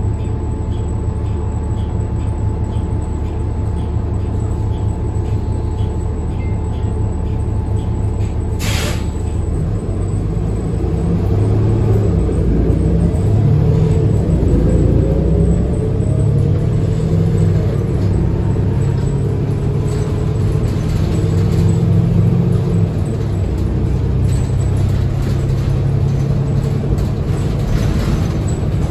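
Inside a 2020 New Flyer XD40 transit bus: the diesel engine idles with a faint regular ticking. A short burst of air-brake hiss comes about nine seconds in. The engine then rises and pulls harder as the bus moves off and accelerates, its pitch gliding up and down through gear changes.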